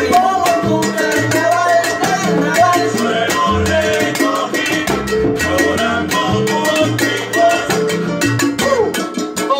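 Live salsa music: conga drums and hand percussion keep a busy rhythm over a repeating bass line, with a man singing into a microphone.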